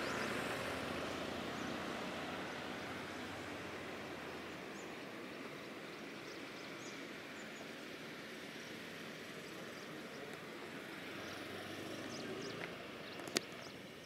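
Outdoor ambience: the rush of a road vehicle passing and slowly fading away, with faint high chirps scattered through it and one sharp click near the end.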